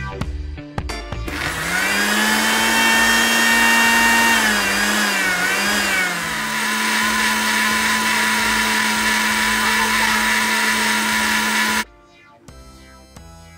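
Countertop blender motor starting up and blending watermelon chunks into juice: its pitch rises as it spins up, dips and wavers for a couple of seconds as the fruit is chopped, then holds steady until it cuts off suddenly near the end.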